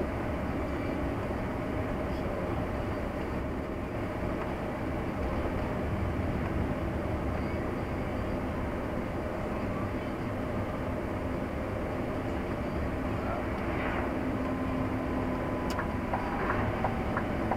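Steady car road and engine noise heard from inside the cabin while driving at an even speed.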